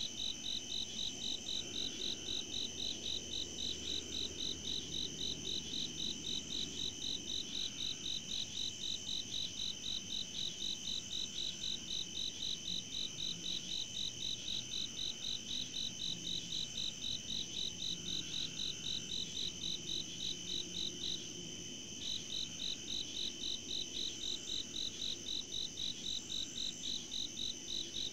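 Night insect chorus: a high, evenly pulsing call repeating several times a second over a steady high trill from other insects. The pulsing stops for under a second about three quarters of the way through, then resumes.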